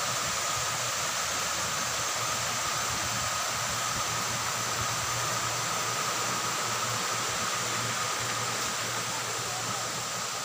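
Steady, even hiss with faint high-pitched tones held over it, unchanging throughout.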